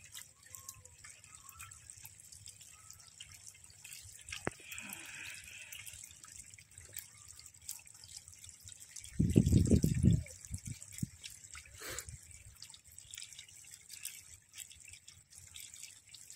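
Shallow water trickling and dripping over a woven bamboo-screen fish trap, with many small ticks and splashes. A brief low rumble about nine seconds in is the loudest sound.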